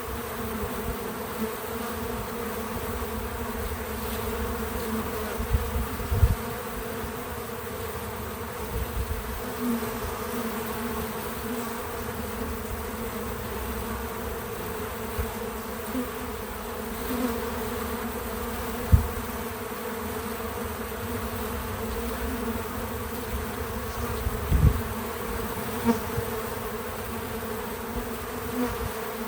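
Many bees buzzing around a feeder in a steady, continuous hum, with a few brief low thumps now and then.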